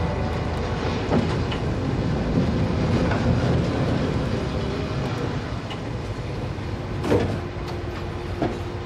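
San Francisco cable car: a steady low rumble of the car and street, with a few sharp knocks, once about a second in and twice near the end.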